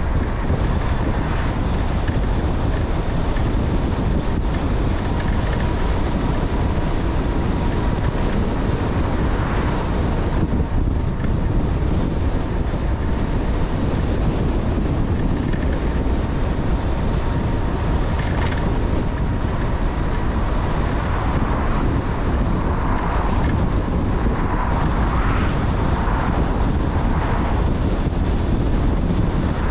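A car driving at a steady speed: continuous road and wind noise with a heavy low rumble and wind buffeting the microphone.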